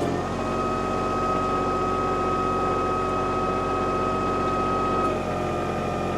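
Kubota tractor's diesel engine running steadily, with a steady high whine over it, as the backhoe's stabilizer feet are raised.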